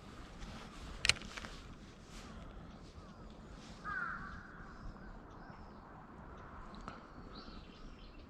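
A crow cawing once about four seconds in, with faint high chirps of small birds over a quiet outdoor background. A single sharp click comes about a second in.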